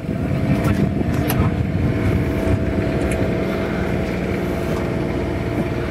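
A motorhome engine running steadily with an even, unchanging drone, with a few faint clicks over it.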